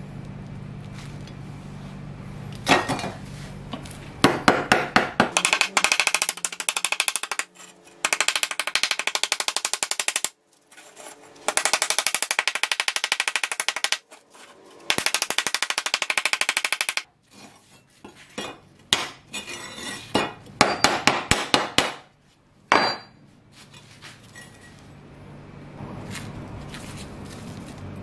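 Rust being worked off a corroded steel cleaver blank by hand: sharp metal taps and clinks, and in the middle three runs of very rapid scraping strokes, each lasting a few seconds.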